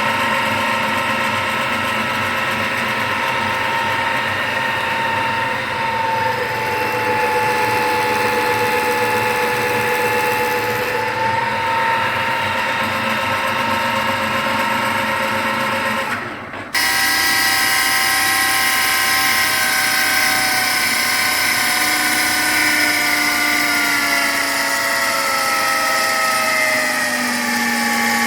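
A new Chinese-made replacement power steering pump on a Volvo engine, whining with several steady pitched tones. The whine briefly drops out a little past the middle, then returns higher in pitch and slides down toward the end as the revs change. The owner says this is the noise the new pump makes above 2000 rpm.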